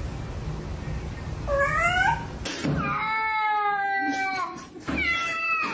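A domestic cat meowing: a short rising call, then a long drawn-out meow and a shorter falling one near the end. A rushing noise fills the first second and a half.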